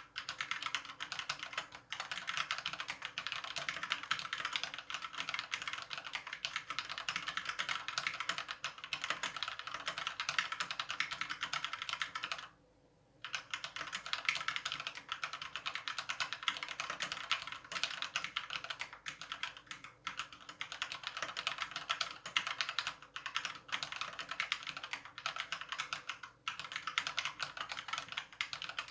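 COX CK87 mechanical keyboard with Gateron Yellow linear switches being typed on quickly and continuously, with one short pause near the middle.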